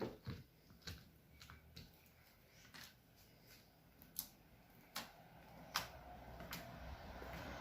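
Slime being handled and worked, giving irregular small clicks and pops of varying loudness, with a soft noisy rustle building over the last couple of seconds.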